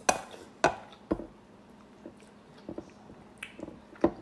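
Close-up eating sounds: chewing, with a few sharp clicks and smacks in the first second or so and another near the end.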